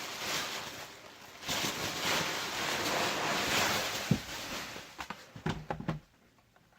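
Rustling and crinkling of packing material as a laptop is unwrapped, followed by a few clicks and knocks of it being handled.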